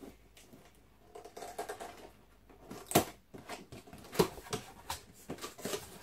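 Cardboard box being opened by hand: the top flaps pulled open with a run of scrapes and taps, and two sharp cardboard snaps about three and four seconds in.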